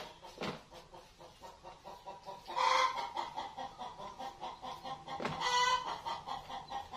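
Hen cackling: a steady run of quick clucks broken by two loud, drawn-out calls, about two and a half and five and a half seconds in. It is the egg song of hens that have laid; it is called noisy, and the hens are said to be laying.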